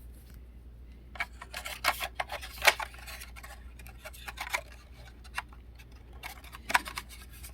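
Irregular clicks and taps of a laptop's bottom access plate being handled and fitted back into place, with a couple of louder knocks.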